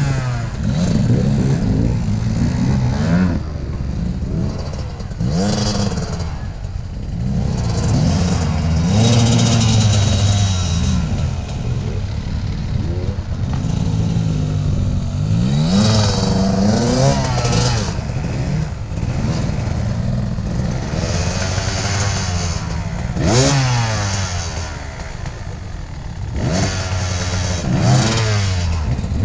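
Husqvarna two-stroke enduro motorcycle being ridden, its engine revving up and falling back again and again as the throttle is opened and closed.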